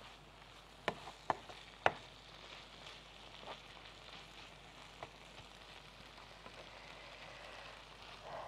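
Meat and green peppers sizzling quietly in a frying pan while being stirred with a metal spoon, with three sharp clicks of the spoon against the pan in the first two seconds.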